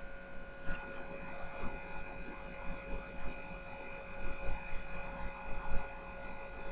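Microphone room tone: a steady low hiss with a faint electrical whine held at a few fixed pitches, and a few soft faint bumps.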